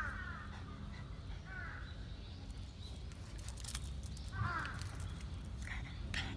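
A crow cawing: three short harsh caws, the loudest about four and a half seconds in.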